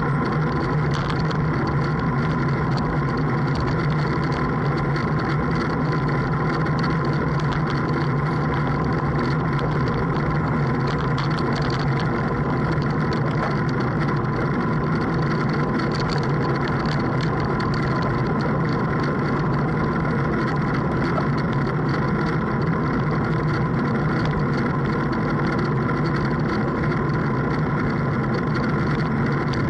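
Boat engine running at a steady speed, a constant drone that does not change.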